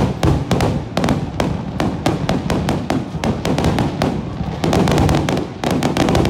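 Aerial firework shells bursting in quick succession, several sharp bangs a second overlapping into a continuous barrage.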